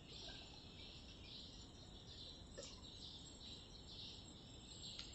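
Faint, high-pitched chirring from small creatures in garden greenery, coming in short repeated pulses about two a second over a low background rumble.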